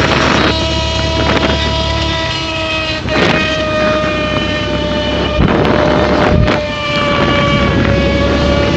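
Scooter running with a sound meant to imitate a sports bike: a steady, high-pitched engine note with several brief surges of rushing noise.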